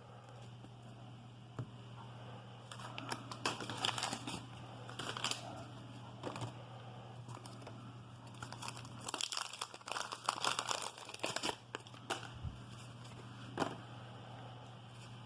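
Wax paper wrappers of 1988 Donruss baseball card packs crinkling and tearing as packs are ripped open by hand, in two main bouts of rustling with cards handled in between.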